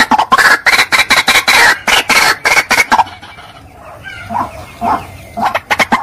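White-breasted waterhen calling: a rapid run of loud, repeated 'ruak-ruak' calls that breaks off about three seconds in. A few softer calls follow, then the rapid calling resumes near the end.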